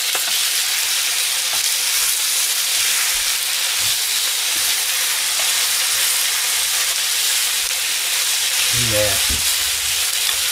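Chopped vegetables and tomato frying hard in olive oil in a frying pan, a steady loud sizzle, stirred and turned with a wooden spatula that gives a few light taps. The sizzle is the water cooking out of the vegetables.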